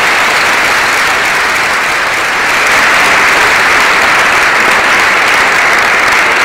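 Large audience applauding, dense and steady.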